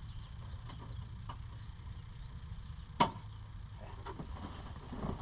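One sharp click about three seconds in, over a low steady hum, followed by a few lighter clicks and rattles near the end: parts or tools being handled during work on a truck's headlight assembly.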